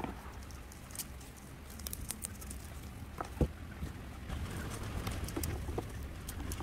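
Scattered light clicks and taps of hands working with succulent cuttings and their pots, with one sharper knock about three and a half seconds in, over a low steady hum.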